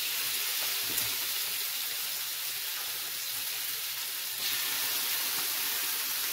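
Food sizzling on a griddle, a steady hiss, with one light tap about a second in.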